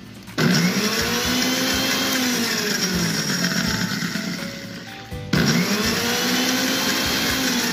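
Butterfly Matchless mixer grinder pulsed twice with its small jar, blending egg whites and oil into mayonnaise. The motor whirs for about five seconds and fades as it winds down, then starts again and runs for about two and a half more seconds.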